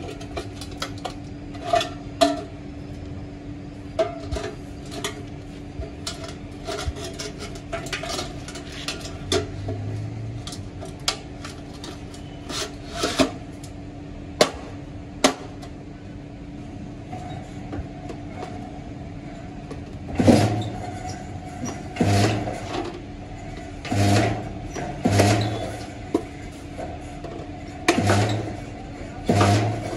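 Metalwork on an exhaust silencer: scattered clinks and knocks on metal over a steady machine hum, then about six heavy blows on metal, one every second or two, in the last third.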